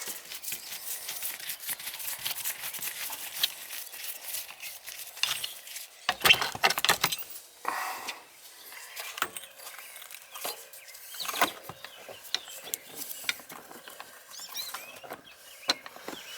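Hand tools working on old outdoor shower fittings: scattered clicks, scrapes and knocks of metal on metal, with a louder cluster of knocks and scraping about six to eight seconds in.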